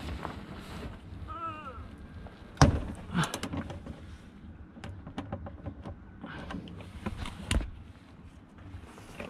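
A few sharp knocks and clunks, the loudest about two and a half seconds in and another near the end, with a short wavering squeak about a second and a half in.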